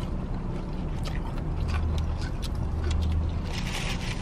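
Crunchy chewing of fried chicken with crispy skin: scattered faint crackling clicks. Under it runs a steady low hum from the car, stronger in the middle.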